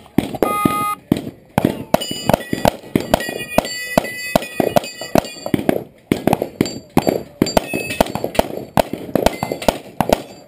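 A short electronic shot-timer beep, then rapid strings of pistol shots in practical-shooting competition, with steel targets ringing as they are hit.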